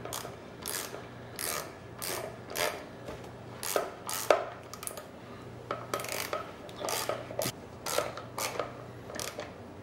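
A wrench turning the long stock bolt that fastens an Akkar Churchill 612 shotgun's buttstock to the receiver, in repeated short strokes about twice a second.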